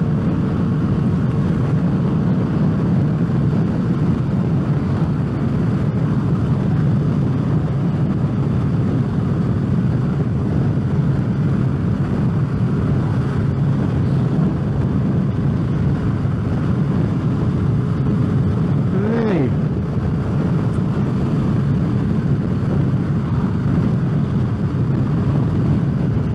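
Motorcycle engine running steadily while riding, heard through a microphone in the helmet's cheek pad, with wind noise against the helmet. About 19 seconds in, a brief tone rises and then falls.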